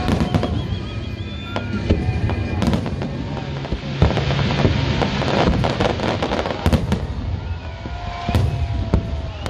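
Fireworks display: repeated sharp bangs of bursting shells, with a dense run of crackling about five to seven seconds in.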